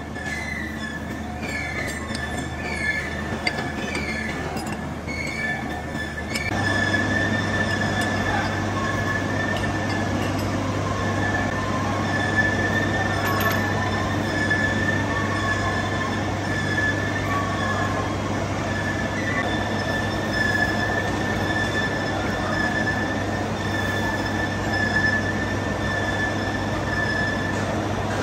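Large old engine lathe turning a steel roller, its cutting tool scraping along the steel with a steady high whine over the machine's running hum. In the first few seconds short chirps repeat under a second apart, then about six seconds in the sound grows louder and steadier.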